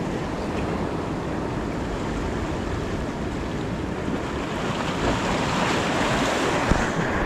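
Sea surf washing steadily over the boulders of a rock jetty, with wind buffeting the microphone.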